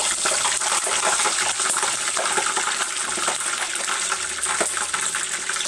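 A vegetable croquette deep-frying in a tempura pot, freshly dropped into oil at about 170–180 °C. The oil gives a steady sizzle with many small crackles.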